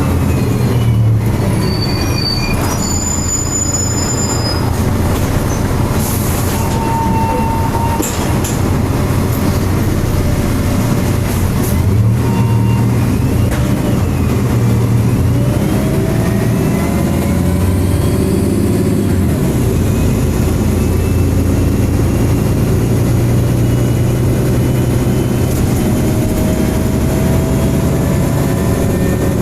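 MAN single-deck bus engine and cooling fan running, heard on board, with whining tones that slowly rise and fall over a steady low rumble and occasional rattles.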